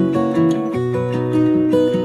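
Background music led by plucked acoustic guitar, with a steady rhythm of notes.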